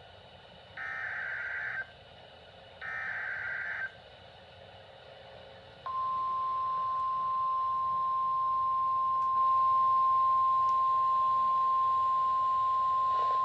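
Emergency Alert System SAME header data bursts, two harsh one-second digital screeches about a second apart, followed a couple of seconds later by the NOAA Weather Radio 1050 Hz warning alarm tone, a single steady tone that starts and holds, announcing a severe thunderstorm warning.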